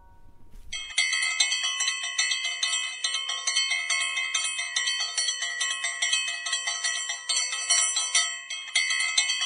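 A bell-like tone rung rapidly and steadily, many strikes a second at the same pitch, starting about a second in.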